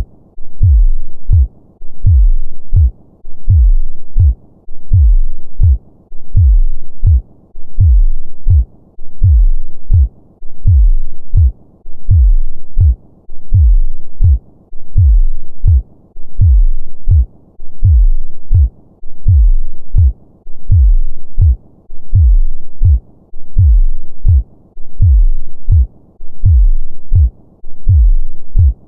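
Human heartbeat sound of a normal heart: a steady, regular lub-dub, low-pitched, repeating about once a second.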